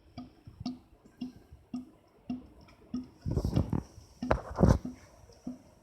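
Air conditioner making an abnormal dripping 'pota-pota' sound that seems to echo inside its pipe: a regular hollow drip-tick just under twice a second. Louder, longer noises come twice in the middle.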